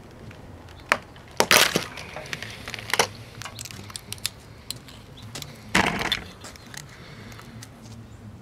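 Press-fit plastic base of a compact fluorescent bulb being pried and cracked open, with a few sharp clicks and snaps; the loudest cracks come about a second and a half in and again about six seconds in.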